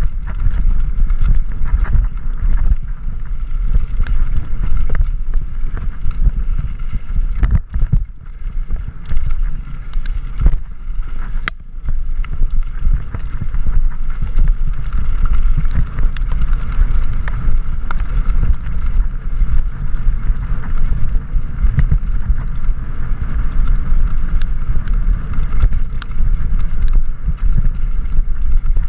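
Wind buffeting the microphone of a camera on a mountain bike descending a dirt and gravel trail, a loud steady rumble. Sharp clicks and knocks come through it many times as the bike rattles over stones and bumps.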